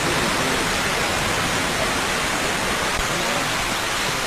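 Steady rushing of a fast-flowing forest stream: an even hiss of water.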